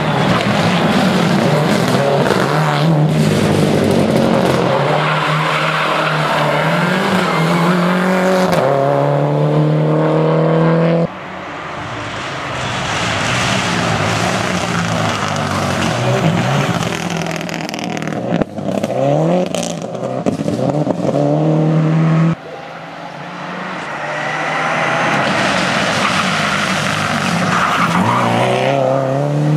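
Subaru Impreza rally car's turbocharged flat-four engine at full throttle, its pitch climbing through the gears as the car drives past. It is three passes cut together, each breaking off abruptly, at about 11 seconds and again at about 22 seconds.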